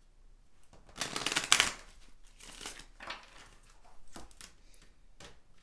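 A Romance Angels oracle card deck being shuffled by hand: a quick riffle of cards about a second in, then quieter sliding and handling of the cards.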